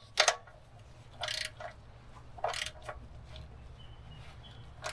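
Socket ratchet tightening an oil drain plug snug by hand: a sharp click or two at the start, then short ratcheting bursts about every second and a half as the handle is swung back.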